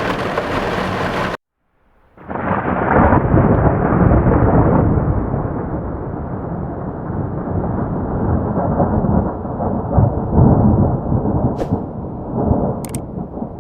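Heavy rain hissing, cut off abruptly by a short silence. A long, loud roll of thunder follows, rumbling deep and swelling twice before slowly dying away.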